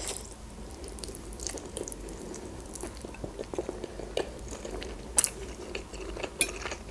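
A woman eating noodles off a fork, chewing and slurping, with a few short sharp clicks. The loudest click comes about five seconds in.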